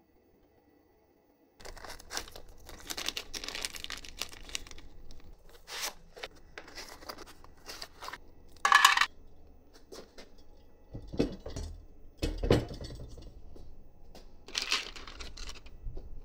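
Hand-assembly sounds at a workbench while building a Voron Trident 3D printer kit. After about a second and a half of near silence come rustling with light clicks and knocks, a sharp louder burst about nine seconds in, and two low thumps a little after eleven and twelve seconds.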